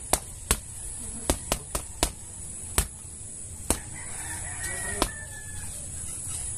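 Boxing gloves smacking a homemade hanging punching bag made from a black plastic sack: a flurry of sharp hits, about nine in the first four seconds, then one more about five seconds in. A rooster crows in the background partway through.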